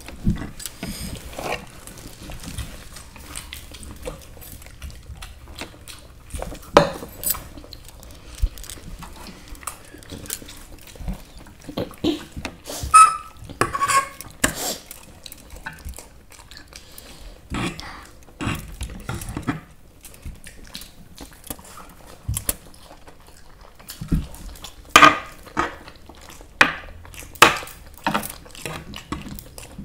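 Eating sounds from a plate of masala Maggi instant noodles: cutlery clinking and scraping against plates in irregular sharp clicks, with chewing and slurping between them.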